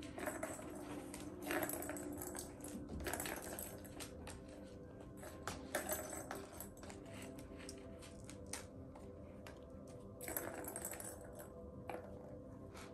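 Scattered light clicks, taps and rattles of kittens at play: paws and claws on a tile floor and a plastic ball rolling and knocking in a pink ball-track cat toy, with short rustling bursts of a few seconds in the middle and about ten seconds in.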